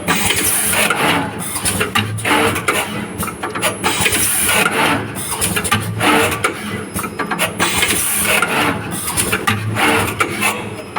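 Automatic wire cutting, stripping and soldering machine running through its cycle: steady motor running overlaid with rapid, irregular mechanical clicks and clacks and short high-pitched bursts recurring every couple of seconds.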